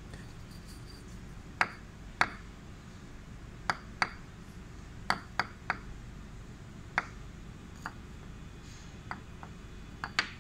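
About a dozen sharp, short clicks at irregular intervals, some in quick pairs, made to set off a sound-reactive LED light, over a low steady hum.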